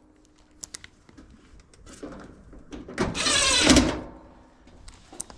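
Reassembly work on a dryer: a few light clicks of parts being handled, then about three seconds in a loud mechanical burst lasting about a second.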